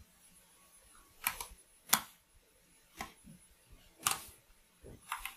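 Sharp clicks at a computer as the code is run: six or seven single clicks about a second apart, a couple of them in quick pairs, the loudest about two seconds in.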